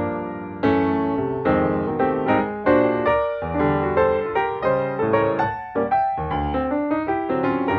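Background piano music: notes and chords struck at an unhurried, uneven pace, each ringing and fading, with the harmony changing from one to the next.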